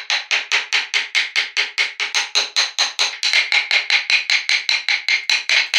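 Wood-carving chisel chopping into a block of wood in quick, even taps, about five a second, each knock with a slight metallic ring.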